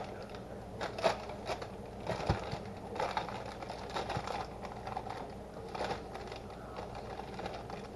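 Quiet handling noises on a kitchen counter: a scattering of light taps, scrapes and crinkles as a pastry roller and the pie dough's plastic wrapping are moved about.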